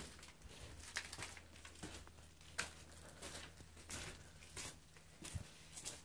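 Footsteps crunching over debris-strewn floor, uneven and hurried, about three steps every two seconds.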